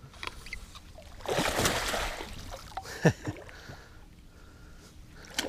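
A hooked northern pike splashing at the surface beside the boat: one burst of splashing lasting about a second, then a few short plops a second later.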